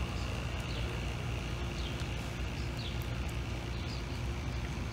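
Steady low outdoor rumble, like wind on the microphone or distant traffic, with faint short high chirps about once a second.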